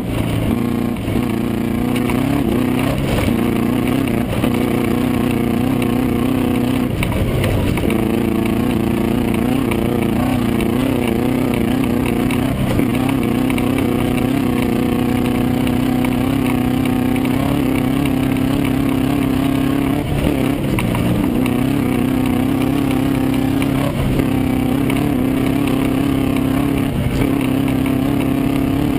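The Volkswagen engine of a Class 9 off-road racing buggy running continuously at fairly steady revs, its pitch rising and dipping slightly.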